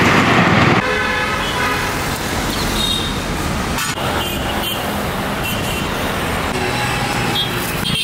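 Road traffic on a busy city street: motor scooters and cars passing, with a louder rush of noise in the first second and a few short horn toots.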